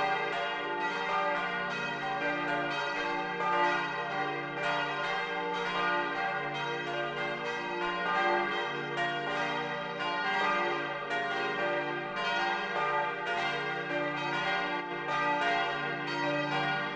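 Full peal of four bronze church bells tuned d', f', g' and b', cast by Junker of Brilon, swinging together and striking over and over in overlapping clangs whose ringing tones hang on between strokes. Heard up close from inside the bell tower.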